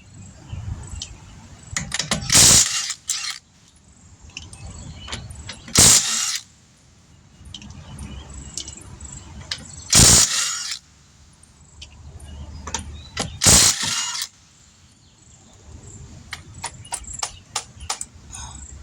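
Hand tools working on a car wheel during a tire change: four loud, short metallic bursts a few seconds apart, with a run of quick clicks near the end.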